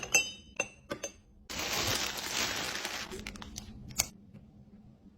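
Glass containers clinking together several times with short ringing tones, then a loud hissing rush lasting about a second and a half, and a single sharp click near the end.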